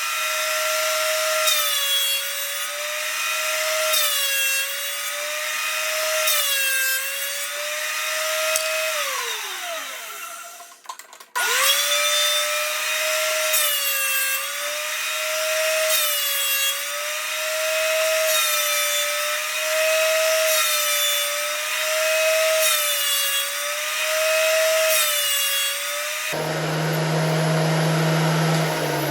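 Thickness planer running with a steady high motor whine that dips slightly every couple of seconds as it takes load. About a third of the way in it spins down with falling pitch, stops briefly, and is started again. Near the end the sound cuts to a different, lower-pitched steady hum.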